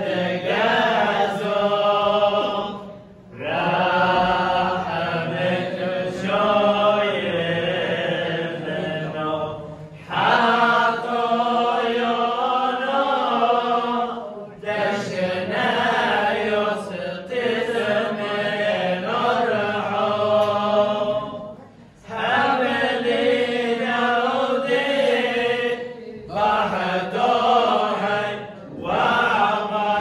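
Several men's voices chanting a liturgical prayer together from prayer books, in long phrases broken by brief pauses.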